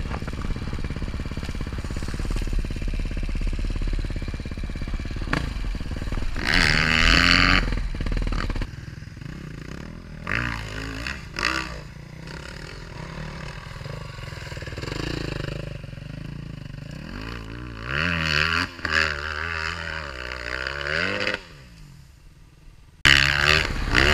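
Enduro motorcycle engine revving up and down several times as it is ridden, with clattering and scraping.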